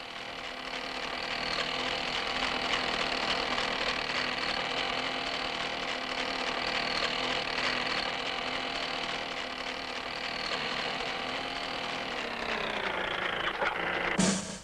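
Steady, engine-like electronic drone made of several held tones: the cartoon sound effect of a flying storm cloud. Its pitch sinks over about a second near the end as the cloud comes down, and a sharp drum hit follows just before the end.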